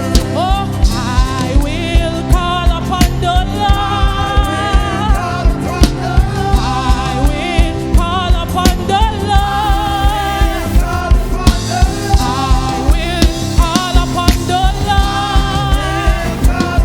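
Gospel worship song: voices singing over a band, with a steady drum beat.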